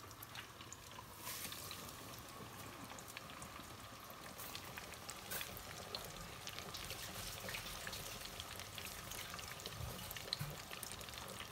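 Breaded chicken pockets deep-frying in hot oil: a steady, faint sizzle with scattered crackles.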